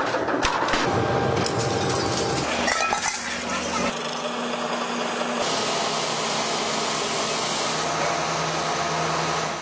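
Metalworking machinery running in a workshop, with aluminium sheet being handled at a rolling mill and then spun into a bowl on a lathe, a tool scraping and clinking against the metal. The noise changes character sharply about four seconds in, and again a second and a half later.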